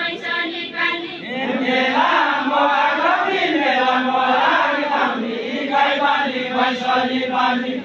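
A group of voices singing a deuda, the far-western Nepali folk song sung by a line of dancers, together in a chant-like unison.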